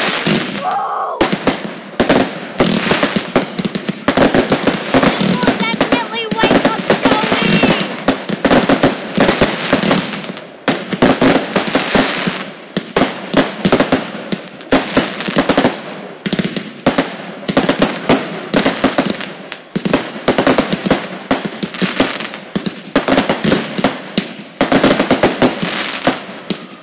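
Fireworks finale: a dense, nearly unbroken barrage of bangs and crackling, many reports a second with only brief lulls.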